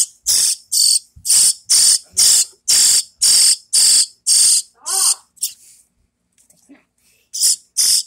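Baby bird's begging calls: loud, hissy high-pitched chirps about two a second while it is fed a worm by hand. The calls stop for about a second and a half near the end, then start again.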